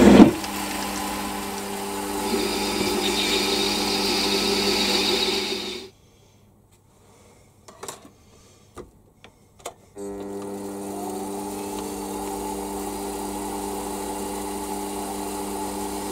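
Small metal lathe running with a steady motor and spindle hum, a hiss of a cut in steel joining in for a few seconds. About six seconds in the lathe stops, leaving a few light clicks of handling, and about ten seconds in it starts again and runs steadily.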